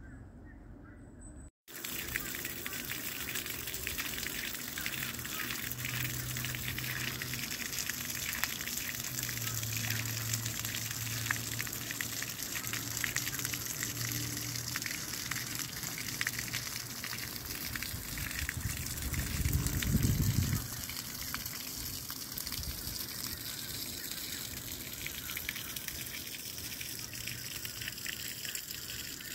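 Breeze rushing steadily through the trees and over the microphone, with a gust buffeting the microphone about twenty seconds in.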